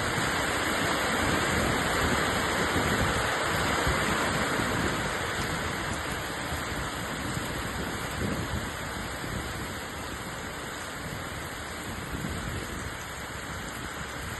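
Steady rain falling, a little heavier in the first few seconds and then easing off.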